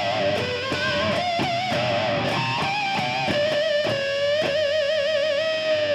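Electric guitar through distortion playing pinch harmonics: a run of picked notes that squeal on high overtones, then a long held squeal with wide vibrato in the second half.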